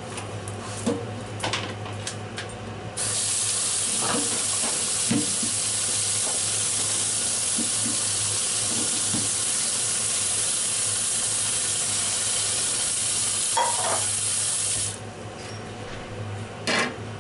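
Kitchen tap running hard into a stainless-steel sink and plastic colander, coming on about three seconds in and shut off a couple of seconds before the end, as cooked gnocchi are drained. A few knocks of the metal pot and colander before and after.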